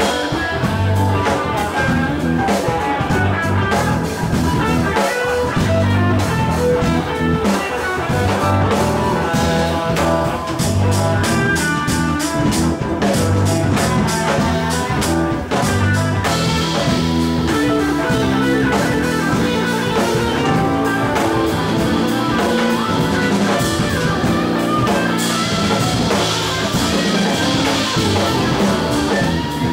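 Live band playing instrumental music with electric guitars, saxophone and drum kit over a steady bass line; the cymbals get louder about halfway through.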